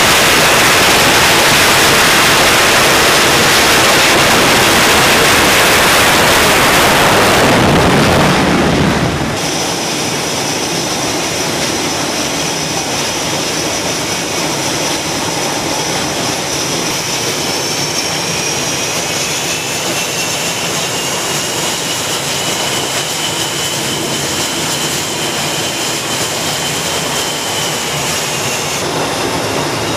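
An F/A-18 Super Hornet's twin jet engines at full launch power on the carrier catapult, a loud roar that falls away about nine seconds in as the jet is launched. After that come the steady high whine of jets idling and taxiing on deck, including an EA-6B Prowler's turbojets, rising slightly in pitch about twenty seconds in as it moves onto the catapult.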